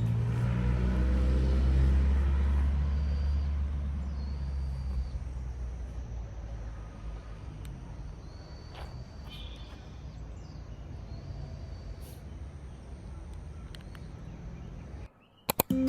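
A motor vehicle passes close by: its low engine rumble is loudest about two seconds in and fades over the next few seconds, leaving steady outdoor background noise with a few faint, short high-pitched chirps. The sound cuts off near the end, and guitar music begins.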